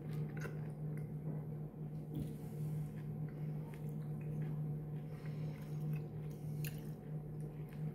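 A steady low hum fills the room, with faint, muffled party noise coming through the ceiling from the floor above. Soft chewing and a few small clicks sound close by.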